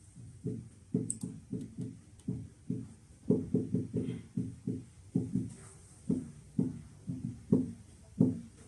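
Music of short plucked-string notes in a low register, several a second, each note dying away quickly.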